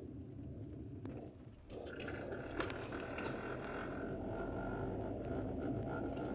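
Steady road and engine noise heard from inside a moving car's cabin, dipping briefly and then growing fuller about two seconds in.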